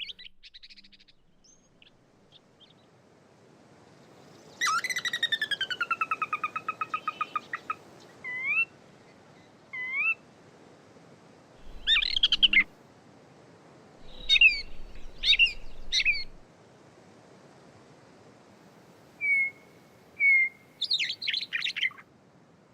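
Gray catbird singing a mimicking song of separate phrases borrowed from other species, which this bird takes from the sora rail, western wood-pewee, Wilson's snipe and Pacific tree frog. About five seconds in comes a long falling run of rapid notes, then two short rising notes, scattered short phrases, two brief whistles and a jumbled phrase near the end.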